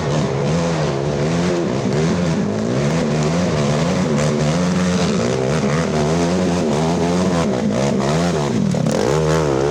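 Racing ATV engine revving up and down repeatedly, its pitch rising and falling about once a second, with a deeper drop and a sharp climb near the end.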